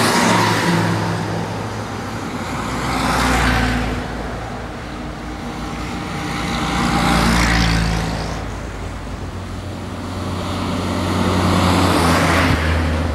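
World War II-era military jeeps and trucks driving past one after another. Each engine swells and fades as it goes by, about four passes in all.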